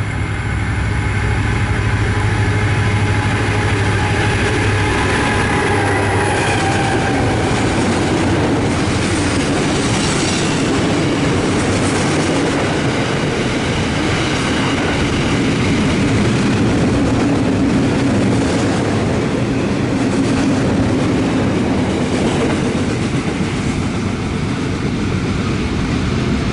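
Diesel-hauled freight train passing close by. The locomotive's engine is heard for the first several seconds, then gives way to a steady rumble and clatter of freight wagons rolling over the rail joints.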